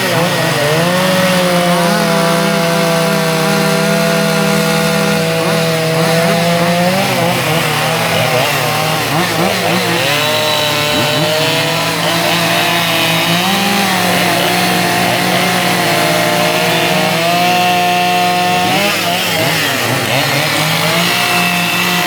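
Chainsaw carving wood: the engine runs loud and steady, its pitch dipping and rising several times as the load on the chain changes.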